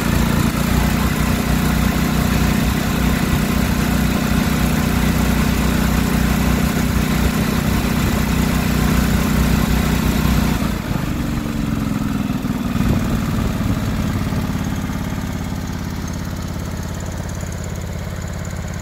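John Deere 425 lawn tractor's 20 HP liquid-cooled OHV V-twin engine running steadily. About eleven seconds in its note drops and it gets quieter.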